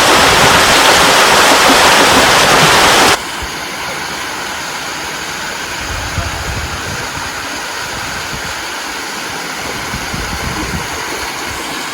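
Waterfall rushing, loud and close for about the first three seconds, then dropping suddenly to a quieter, steadier rush of falling water.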